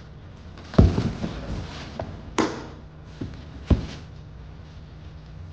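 Unboxing handling noise: the electric scooter's stem and handlebar knock against the cardboard box, with plastic wrap rustling. There are two heavier thumps, about a second in and just before four seconds, and a sharp rustle between them.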